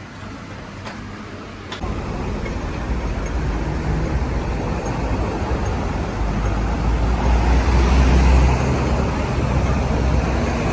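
Street traffic noise: a steady low rumble of passing road vehicles that comes in suddenly about two seconds in and grows louder toward the middle.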